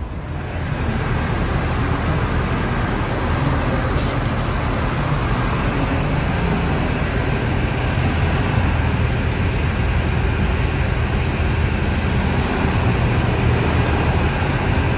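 City street traffic around buses: a steady engine and traffic rumble from buses and cars, with a brief sharp hiss about four seconds in.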